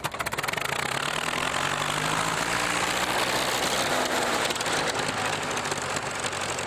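Engine of a 1928 Clayton and Shuttleworth combine harvester catching and running. It starts suddenly, then keeps up a fast, even firing beat, and its low hum rises a little in pitch over the first few seconds as it picks up speed.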